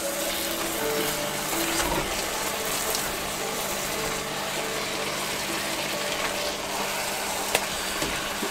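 Oxtail frying in a Dutch oven with a little wine added to deglaze, a steady sizzle, with a few light knocks as the pan is stirred and scraped.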